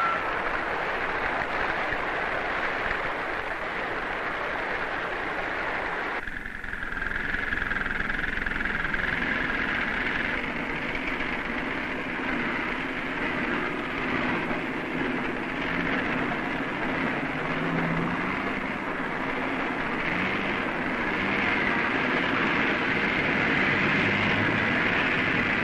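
Steady mechanical din like heavy machinery running, with a brief dip about six seconds in.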